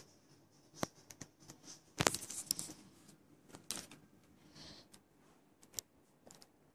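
Scattered light clicks and short rustles of handling noise, with the loudest rustling cluster about two seconds in.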